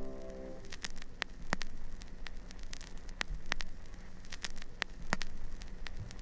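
Irregular crackling with sharp pops, after a held music chord cuts off about half a second in.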